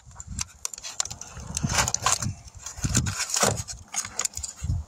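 Cardboard-and-plastic packaging of a tire spoon set being handled and pulled open, with irregular rustling, scraping and low thumps close to the microphone. The loudest bursts come about two and three and a half seconds in.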